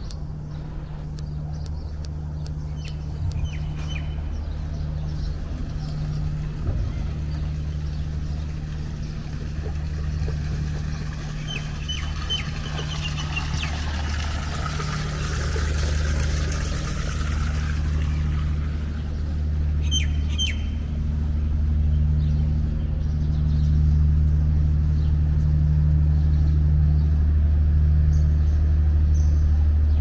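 Street ambience: a steady low hum that grows louder in the second half, a vehicle passing about halfway through, and short bird chirps now and then.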